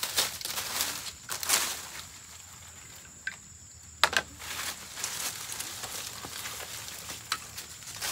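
Dry bamboo leaves and sticks rustling and scraping as they are cleared from the ground by hand, in bursts during the first two seconds, with a sharp knock about four seconds in and a few lighter ticks later. A faint steady high insect drone runs underneath.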